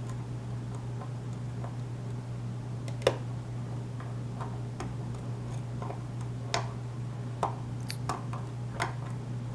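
Small, irregular metallic clicks of a lock pick working the pins of a pin-tumbler challenge lock with a Schlage keyway, the loudest about three seconds in and several more in the last few seconds, over a steady low hum.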